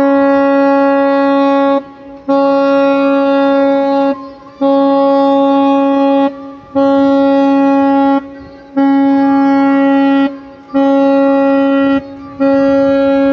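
A river cruise ship's horn sounding a long run of repeated blasts, each held steady on one deep pitch for about two seconds with a short break between, about seven in all: a departure salute as the ship leaves.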